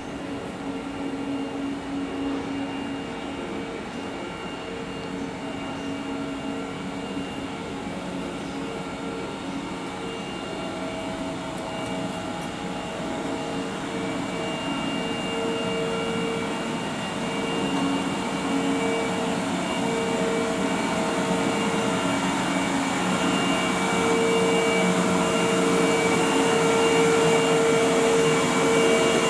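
Stationary 651-series electric limited express train's auxiliary equipment humming with several steady whining tones, growing gradually louder toward the end.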